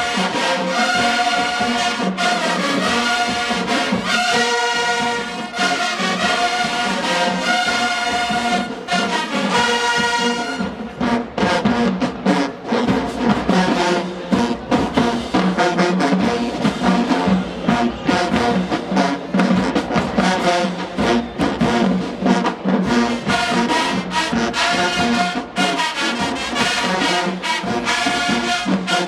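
HBCU marching band playing loud brass music. The horns hold full chords at first. About ten seconds in, the music turns to a choppier, punchier passage with heavy drum hits, and held brass chords return near the end.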